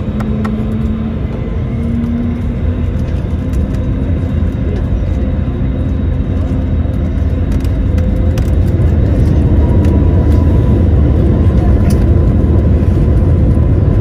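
Cabin noise of an Airbus A321neo taxiing: the engines and the rolling undercarriage make a dense low rumble that grows steadily louder, and a thin engine whine joins about ten seconds in.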